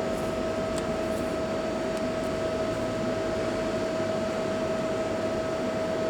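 Steady machine hum and hiss with one constant mid-pitched tone, like cooling fans running on a workshop machine, with a few faint clicks in the first couple of seconds.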